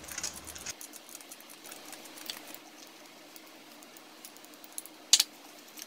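Faint scraping of a vegetable peeler shaving zest off a lemon, then a single sharp knock about five seconds in.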